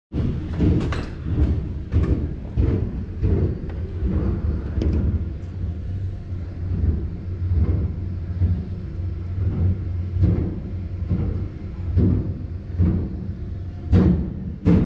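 Liebherr LB30 drilling rig running with a continuous deep rumble, broken by repeated, irregularly spaced knocks and clanks.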